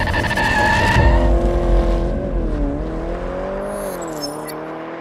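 Car tyres squealing in a burnout over a loud engine, then the engine revving up and down as it fades away. A few short, high glitchy effect clicks about four seconds in.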